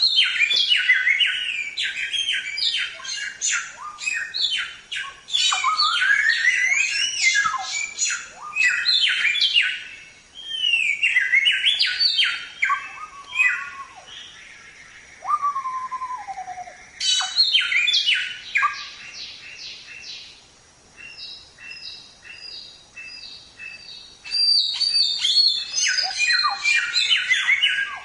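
Samyong (golden whistler) singing a loud, varied song of fast runs of repeated sharp notes, trills, and rising and falling whistles. It comes in bursts separated by short pauses.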